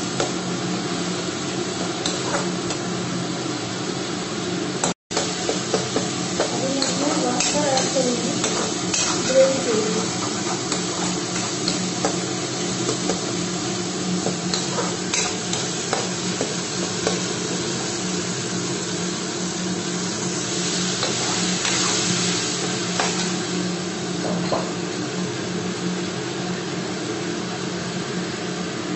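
Slotted steel spatula stirring and scraping an onion-tomato masala gravy in an iron kadai, with light clicks of metal on the pan and the gravy sizzling in its oil, over a steady low hum. The sound cuts out briefly about five seconds in.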